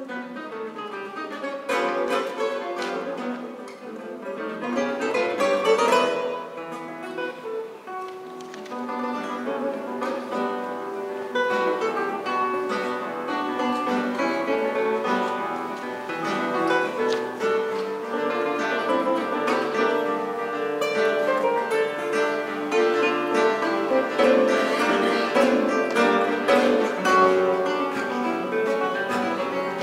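Three classical nylon-string guitars playing together live, a Brazilian baião in quick plucked notes. It starts softly and grows louder about two seconds in.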